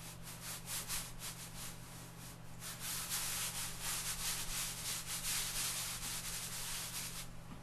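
A stick of lecturer's chalk rubbed across the drawing paper in quick repeated strokes, growing denser and louder about three seconds in and stopping near the end.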